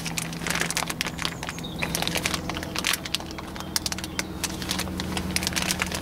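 Dense, irregular crackling and crinkling of something being handled off camera, over a steady low hum.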